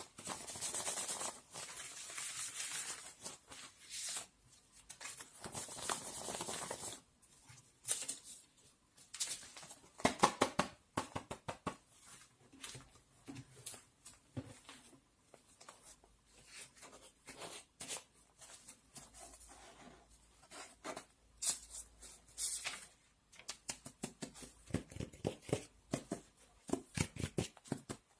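Rustling and crinkling for the first seven seconds or so, then a long run of scattered light taps and clicks as small objects are handled.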